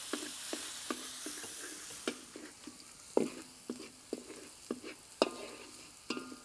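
Onion and garlic frying in oil in a pan until fragrant, the sizzle fading after about two seconds, while a spatula stirs them with a sharp knock against the pan every half second or so.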